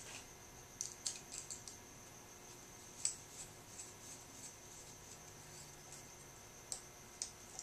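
Small scattered clicks and taps of a screwdriver and copper wire against a metal keyless lamp socket as the wire is wound onto a terminal screw, in clusters about a second in, around three to four seconds in, and near the end.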